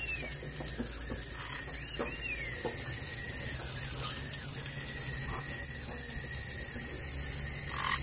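Water from a garden hose splashing steadily onto wet concrete, a constant high hiss, while a white-crowned parrot bathes in the puddle. There are a couple of short high chirps about two seconds in.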